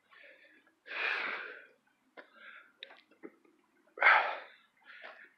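A man breathing hard close to a phone microphone: two loud exhales, about a second in and about four seconds in, with fainter breaths between.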